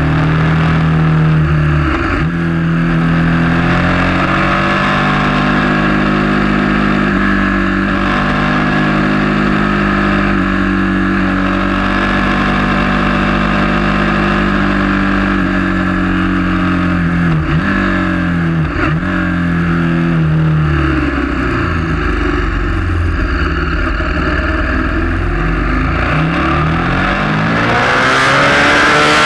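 KTM 1190 Adventure S's V-twin engine heard from on board while riding, its pitch rising and falling with the throttle and gear changes, with short dips at shifts about two seconds in and twice near the middle. Near the end it revs up louder as the bike accelerates.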